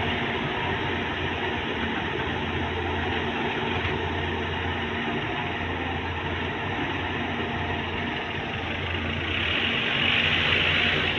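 Volvo EC210B excavator's six-cylinder diesel engine running steadily with a low, even hum, growing a little louder near the end.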